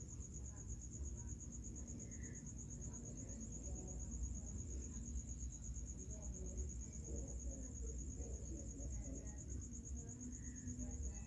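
A cricket trilling: a steady, high, fast-pulsing trill that runs on without a break, over a faint low rumble.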